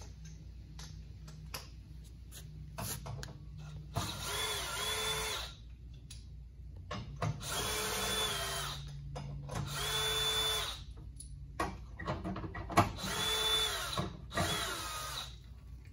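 Power tool turning a 12 mm socket to back bolts out, in four short runs of about a second each, the motor speeding up and slowing down each time. Short metallic knocks and clicks come between the runs.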